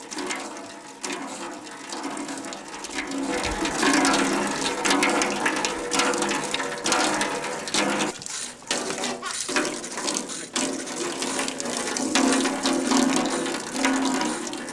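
Water gushing steadily from the open end of a plastic pipe and splashing.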